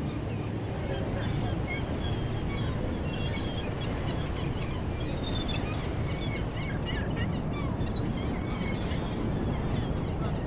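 Added harbour ambience: a steady low rumble of background noise with many short bird chirps and calls scattered over it, thickest around the middle.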